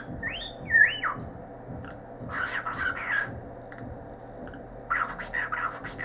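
Cockatiel giving two quick rising whistles, the loudest sound, followed by two short bursts of thin, raspy, speech-like chatter, one in the middle and one near the end.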